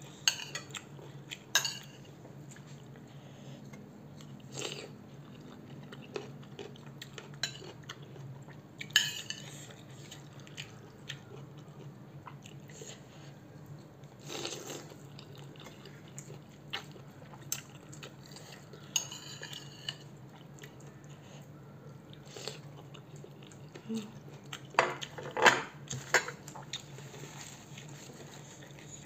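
A metal spoon clinking and scraping in a ceramic bowl of Samyang noodles, with slurps and chewing of noodles and petai beans in between. There are scattered sharp clinks, the loudest a little before the end, over a faint steady low hum.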